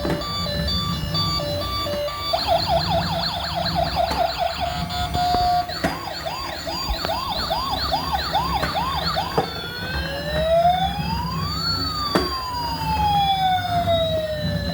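Police-style electronic siren: a rapid yelp starting about two seconds in, a second yelp pattern after a short held tone, then a slow rising and falling wail near the end. A few seconds of steady beeping tones come first, over a low steady background hum.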